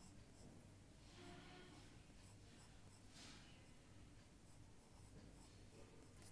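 Faint scratching of a drawing tool on paper, in short strokes, the clearest about one second and three seconds in, over a steady low electrical hum.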